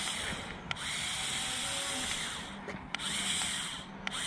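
Small electric motors of a Lego RC crawler whirring with a high-pitched whine in runs of about a second, stopping briefly with a click between runs, about three times.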